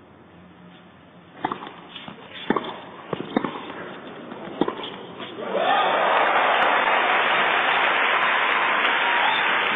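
A tennis rally on a hard court: about six sharp ball strikes and bounces, half a second to a second apart. About halfway through, loud crowd applause breaks out as the point ends and carries on.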